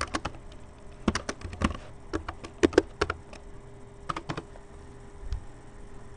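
Computer keyboard being typed on in short bursts of keystrokes with pauses between, the sharpest strokes about two and a half to three seconds in, and a single keystroke a little after five seconds. A faint steady hum sits underneath.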